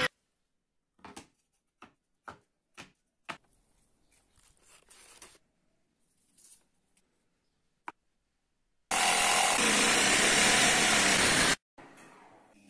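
A few light knocks and taps of plywood being handled and set down. Then a power saw cuts through plywood: a loud, steady cutting noise that starts abruptly about nine seconds in and cuts off suddenly less than three seconds later.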